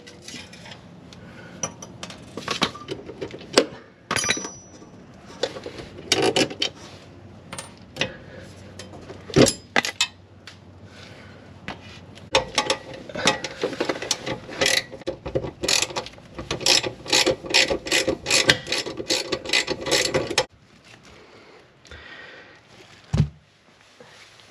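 Hand ratchet wrench clicking in runs, with scattered knocks of metal parts; the longest, densest run starts about halfway through and stops a few seconds before the end.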